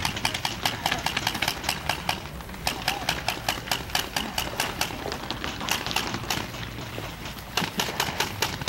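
Paintball markers firing: strings of sharp pops, several shots a second from more than one gun, easing briefly about two seconds in and again near the end before picking up.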